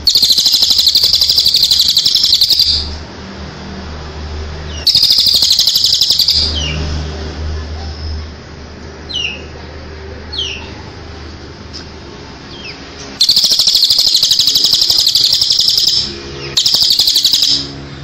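Recorded songs of cililin and ciblek (bar-winged prinia) played as a bird-song tutor track: four loud bursts of a very rapid high trill, each lasting one to three seconds, with a few short falling whistles between them. A low hum runs underneath.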